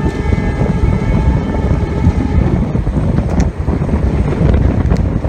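Wind buffeting the microphone aboard a moving passenger train, with the horn of the WDP-4D diesel locomotive hauling it sounding under the wind for the first two and a half seconds and then stopping. A couple of sharp clicks follow.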